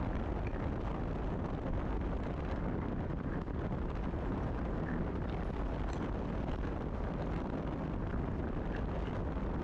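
Steady low wind rumble on the camera microphone and road noise from a motorcycle running at highway speed on a wet road.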